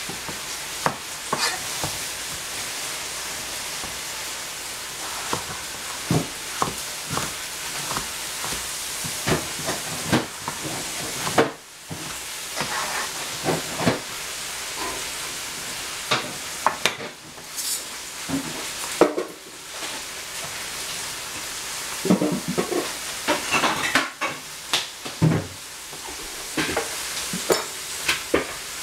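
Food frying in a pan with a steady sizzle, with scattered knocks and clicks from eggplants being handled and cut on a plastic cutting board.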